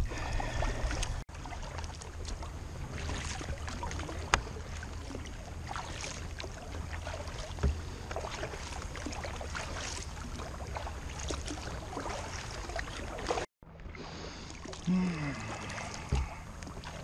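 Kayak paddle blades dipping and pulling through calm sea water in steady strokes, with water washing along the hull and an occasional sharp click.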